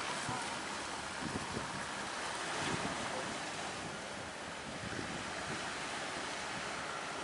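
Steady rush of strong wind and sea waves around a boat, with wind buffeting the microphone in uneven low thuds.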